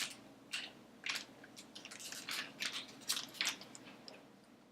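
Small plastic toy packaging crinkling and rustling in the hands as it is searched through, a scatter of short crackles and clicks.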